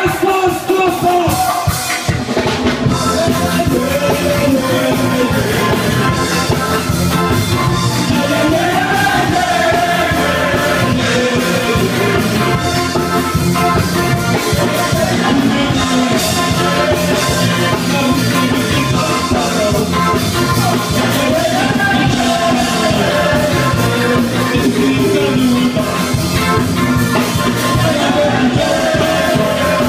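Live ska band playing loud, with drum kit and guitar and a group of voices singing together into microphones.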